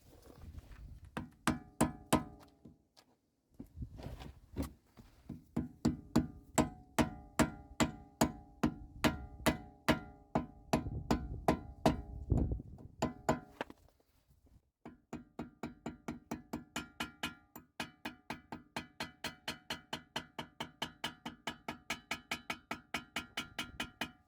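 Hammer blows tapping a metal hub dust cap into the front wheel hub of a BMW E36: a steady run of taps, two to three a second, each with a short metallic ring. There are brief pauses about three and fourteen seconds in, and the taps come a little quicker after the second pause.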